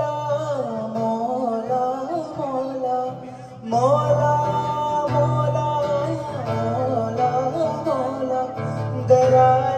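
Live music: a male singer holds long, wavering vocal notes with few words, accompanied by a strummed acoustic guitar. The sound drops briefly a little over three seconds in, then the singing resumes.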